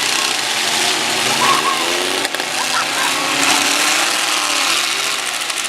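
Demolition derby trucks' engines running loud and revving unevenly, with a single sharp knock a little over two seconds in.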